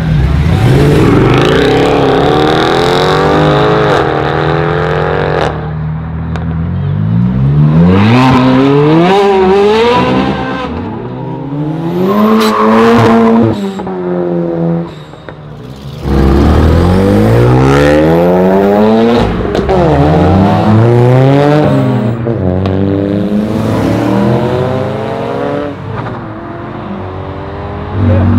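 Several performance cars accelerating hard one after another, each engine climbing steeply in pitch and dropping back at every upshift as it pulls away through the gears.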